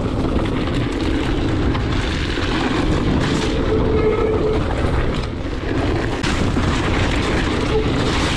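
Wind buffeting the camera microphone while an electric mountain bike rolls over a wet, stony gravel trail: a steady rumbling noise of tyres on stones and rattling bike. A faint whine rises and fades a couple of times.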